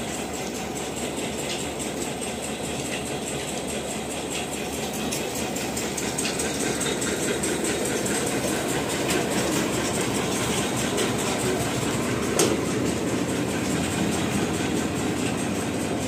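Tractor-driven mini combine harvester running, with a steady mechanical clatter at a fast, even rhythm. A single sharp click comes about twelve seconds in.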